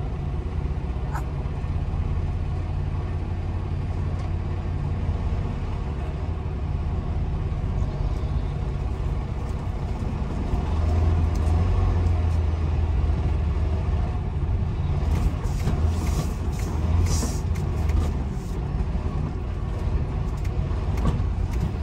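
Semi-truck engine and cab noise, heard from inside the cab as the truck rolls slowly: a steady low rumble. Brief sharp clatters come in the second half.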